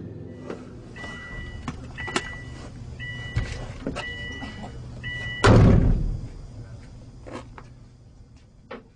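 Car's warning chime beeping over and over, evenly spaced, over the engine idling, while the driver's door stands open. About five and a half seconds in the door slams shut with a loud thump, then a few light clicks follow.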